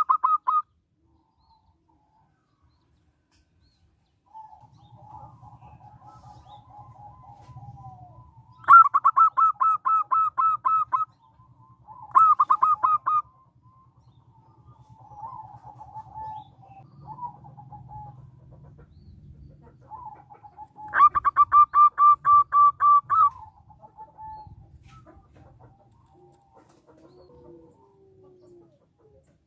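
Local zebra dove (perkutut) calling: three loud runs of rapid staccato notes, about 9, 12 and 21 seconds in, with quieter trilling notes in between.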